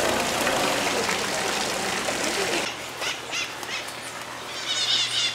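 Water splashing steadily from a small garden fountain spout, then, after a cut about halfway through, quieter outdoor garden ambience with a bird chirping in quick high calls near the end.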